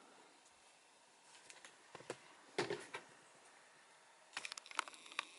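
Light handling clicks and taps of an aluminium ruler being moved and set against the wooden subwoofer box panel, with a slightly heavier knock about two and a half seconds in and a quick run of small clicks near the end.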